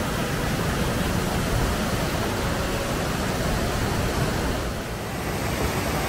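Steady rushing of the Sychryd stream's waterfall cascades pouring over boulders, with a slight dip about five seconds in.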